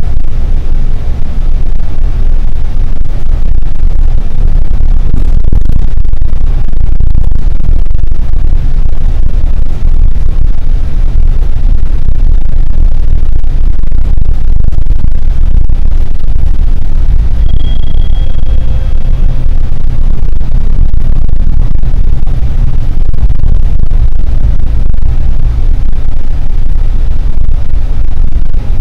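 Steady low rumble of a moving bus heard from inside the cabin, made up of engine, road and vibration noise. A brief high tone sounds about two-thirds of the way through.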